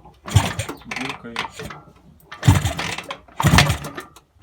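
IZh Jupiter two-stroke engine turned over three times with the right cylinder's spark plug removed, the open plug hole blubbing on each stroke. Without the plug it turns over normally, with no knock.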